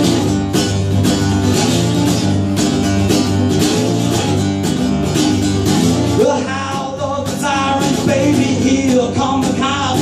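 Acoustic guitar strummed in a steady rhythm, with a man's singing voice coming in about six seconds in.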